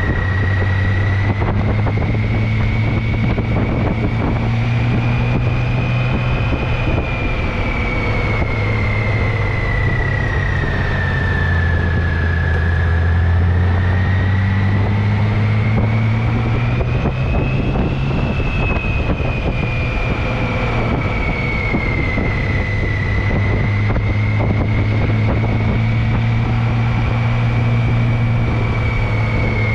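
Motorcycle engine running steadily at cruising speed, with wind rushing across the microphone and a thin high whine that drifts slowly up and down in pitch.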